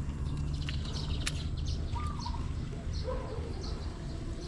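Birds chirping, with short high calls repeated several times and a couple of lower calls, over a steady low rumble.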